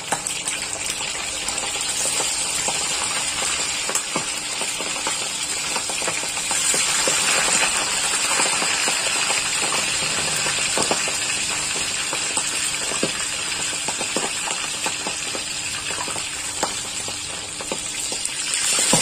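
Hot oil sizzling steadily in a wok as milkfish are deep-fried. It gets louder about six seconds in, and again near the end as another fish is lowered into the oil.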